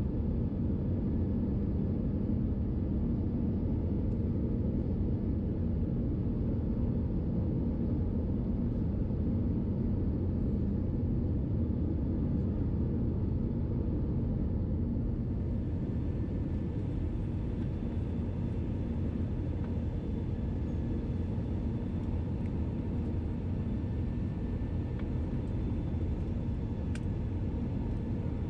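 Cabin noise of an Airbus A321-211 on final approach, heard from a window seat beside the wing: a steady, even rumble of airflow and its CFM56 engines with a faint low hum.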